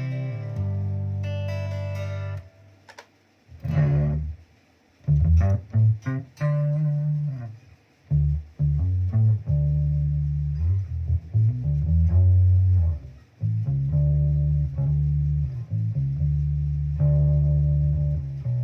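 Electric guitar played through a Zoom G1Xon multi-effects pedal: low sustained notes and short phrases, with brief pauses between them.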